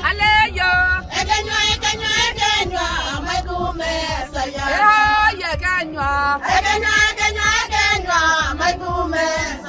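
A group of Maasai women singing together unaccompanied, several high voices in repeated sung phrases with short breaks between them.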